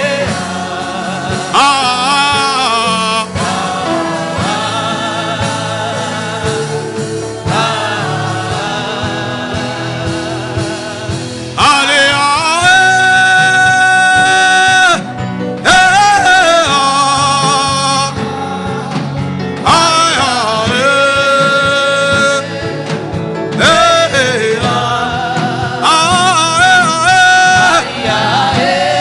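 Worship singing over instrumental music: long held, wavering sung notes in phrases a few seconds long, with short breaks between phrases.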